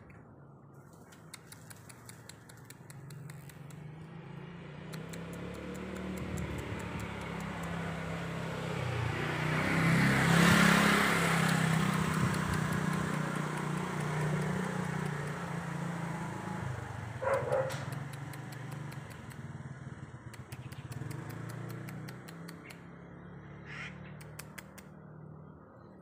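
A motor vehicle's engine and tyres pass by with a steady low hum. The sound swells to a peak about ten seconds in, then slowly fades. A short sharp sound comes about seventeen seconds in.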